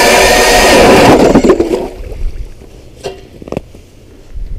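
StrikeMaster Lithium battery-powered ice auger drilling through ice, its electric motor whining steadily, then winding down and stopping about two seconds in. Two short knocks follow in the quiet.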